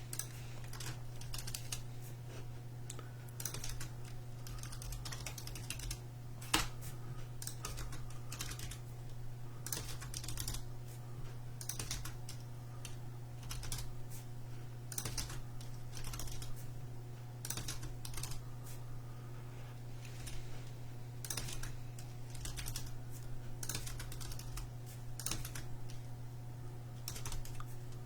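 Irregular clicking of typing on a computer keyboard, over a steady low hum. One sharper click stands out about six and a half seconds in.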